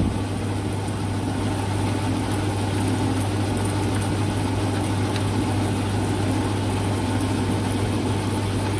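Milling machine running with a steady hum, its end mill taking a light cut to square the end of an aluminium bar.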